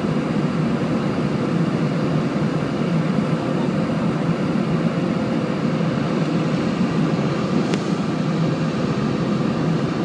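Steady cabin noise of an Airbus A320 in flight, heard from a window seat over the wing: an even rumble of the engines and rushing air, with a faint click about three-quarters of the way through.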